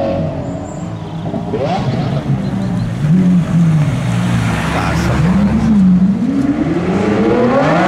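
Supercar engine running off a steady low note, blipped up in pitch twice, then revving higher and higher near the end as a car accelerates closer.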